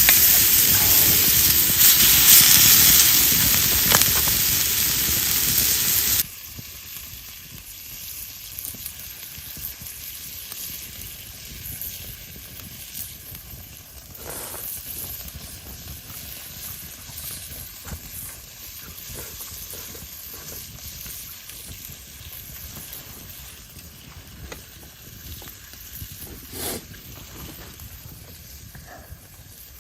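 Meat sizzling loudly as it cooks over the fire, cutting off suddenly about six seconds in. After that, a much quieter steady hiss with a few faint clicks.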